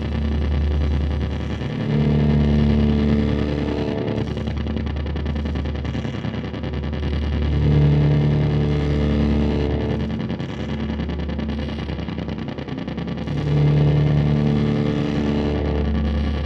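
Ambient soundtrack music: held chords swell in about every six seconds over a steady deep drone.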